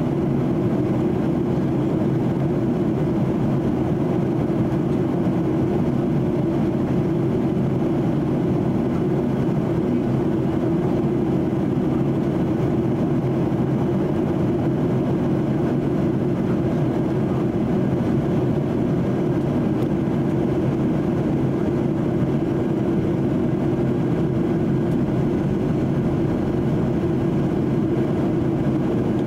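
Steady cabin noise inside a Boeing 737-800 in flight: an even, low roar of its CFM56 jet engines and the airflow past the fuselage.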